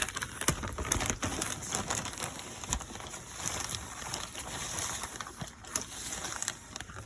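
Dry cota herb being crumbled and rustled by hand, an irregular crackling with many small clicks.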